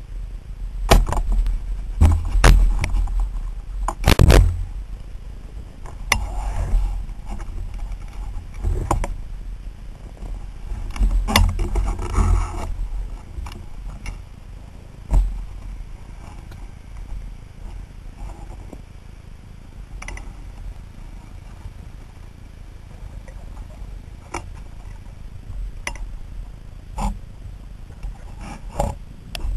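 Underwater, a run of sharp knocks and clicks over a low rumble, from a freediver's pole spear and camera gear. The knocks come thick and loud in the first half, the loudest about four seconds in, then thin out to a few quiet clicks.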